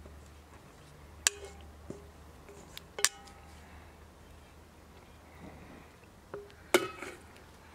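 Stainless steel mixing bowl and spatula clinking as sauce is scraped out of the bowl: three sharp metallic clinks with a brief ring, about a second in, three seconds in and near the end, between softer scraping, over a faint low hum.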